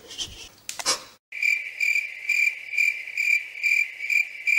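A second of rustling, then cricket chirping: a steady high trill pulsing about twice a second that starts and stops abruptly, out of dead silence. It is the comic 'crickets' sound effect laid over the clip.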